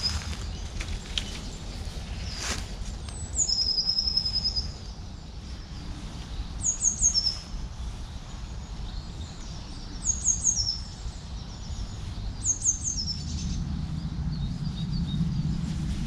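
A small songbird singing short phrases about every three seconds, each a few high, quick falling notes, the first one ending in a short trill, over a steady low rumble.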